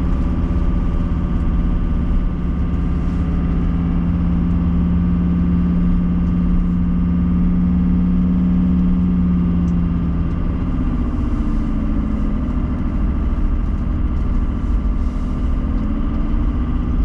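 Car engine and road noise heard inside the cabin, the car climbing a steep hill. A steady low engine hum holds, then drops away about eleven seconds in.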